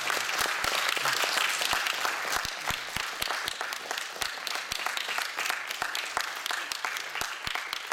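Congregation applauding, loudest over the first few seconds and then thinning out, with separate claps standing out near the end.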